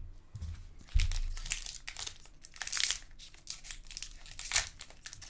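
Hockey card pack wrappers crinkling and cards rustling as they are handled, in irregular scratchy strokes, with a soft bump about a second in.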